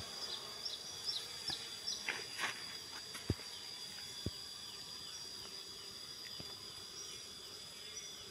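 Insects chirring in a steady, high, even drone, with repeated short falling chirps over it. A few faint knocks come in the first half.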